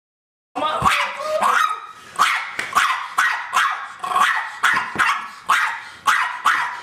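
Small terrier-type dog barking over and over at a steady pace of about two barks a second, starting about half a second in.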